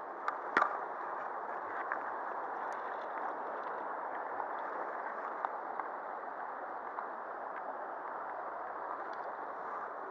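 Shallow river water running over pebbles and stones, a steady rushing, with a couple of small clicks about half a second in.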